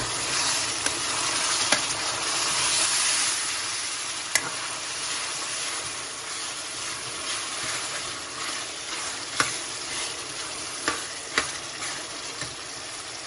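Zucchini cubes and onion-tomato masala sizzling in hot oil in a metal frying pan as they are stirred with a metal spoon that clinks against the pan several times. The sizzle is strongest in the first few seconds, right after the zucchini goes in, then eases off.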